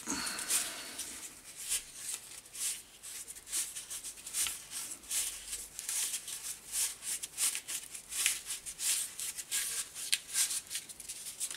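A strip of cardboard being rolled up tightly by hand: an uneven scratchy rustling and crackling of the cardboard, made of many short rasps.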